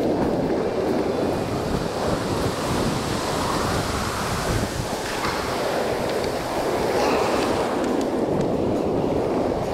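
Ocean surf washing and breaking over shallow sand in a steady rush, with wind buffeting the microphone.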